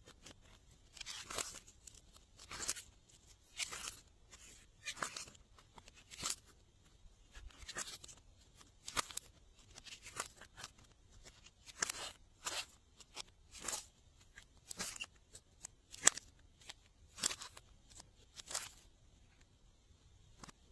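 Glossy slime being pressed and worked, giving a run of short, sharp, wet crackles about once a second.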